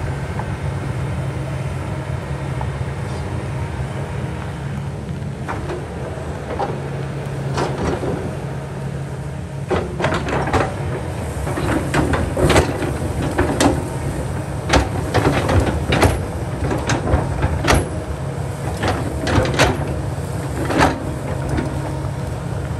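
Kobelco excavator's diesel engine running steadily, with a string of sharp knocks and clatters that start about five seconds in and come thickest in the second half as the machine works.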